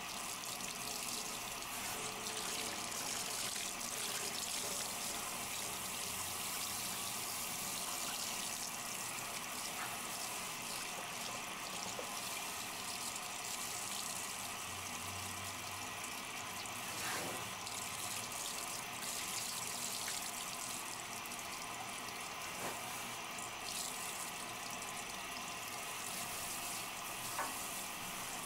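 Handheld shower sprayer running steadily, water splashing onto a wet golden retriever and the bathtub, with a few faint knocks.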